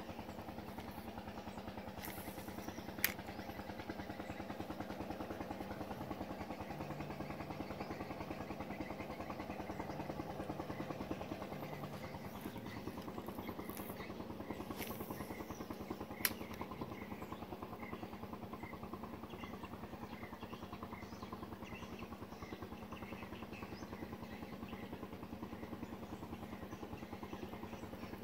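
An engine running steadily, with two sharp clicks, about three seconds in and again about sixteen seconds in.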